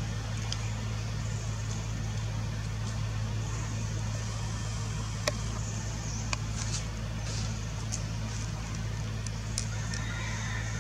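A steady low hum, like a distant engine or motor, under a faint high hiss, with a few sharp clicks about five, six and nine and a half seconds in.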